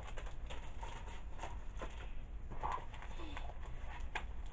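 Sticker sheets and paper rustling and crinkling as they are handled and sorted by hand, in short scattered rustles over a low steady hum.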